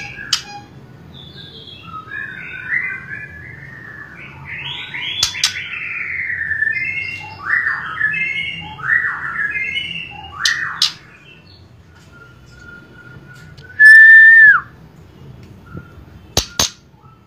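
Young white-rumped shama (murai batu F4 cross) singing a quiet, varied warble of short chirps and slurred notes for about ten seconds. Near the end comes one loud held whistle that drops in pitch as it ends, with a few sharp clicks scattered through.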